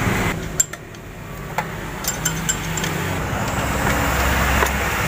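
A motor vehicle engine running steadily as a low hum, growing louder in the second half. Over it come a few light, sharp metallic clinks of a hand tool working on the alternator's adjustment bolts as it is loosened to free the fan belt.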